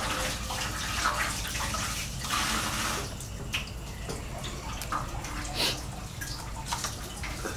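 Leafy vegetable stems rustling and snapping as leaves are stripped off by hand: a dense rustle for about the first three seconds, then separate crisp snaps.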